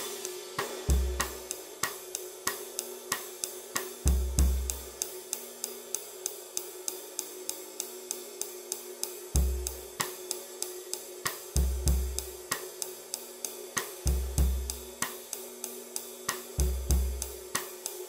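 Paiste Formula 602 Classic Sounds 20-inch thin flat ride played with a stick in a steady time pattern: dry, evenly spaced pings over a low sustained wash. Kick drum thumps come in short clusters every few seconds underneath.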